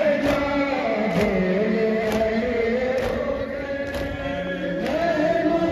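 A crowd of mourners chanting a noha in unison, with collective chest-beating (matam) striking in time, a little under once a second.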